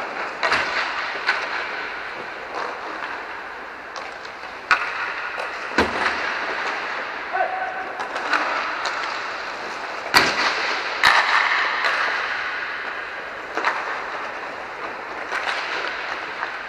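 Inline hockey play: irregular sharp cracks of sticks hitting pucks and pucks striking the boards, echoing in the dome, over the rolling hiss of skate wheels on the rink floor. The loudest crack comes about ten seconds in.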